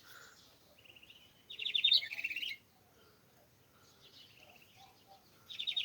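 Songbirds singing: a phrase of rapid, repeated high chirps about a second in, softer chirps later, and another trilled phrase starting near the end.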